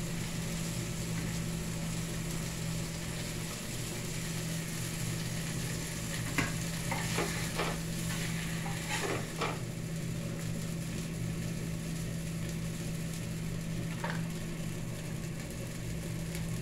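Tortillas coated in red chile sauce frying in hot oil in a pan, a steady sizzle over a low hum. A spatula scrapes and knocks against the pan several times between about six and ten seconds in, and once more near the end.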